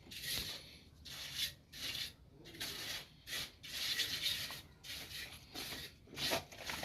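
Hand tool rasping back and forth in uneven strokes, roughly one or two a second, as in scraping, filing or sawing work.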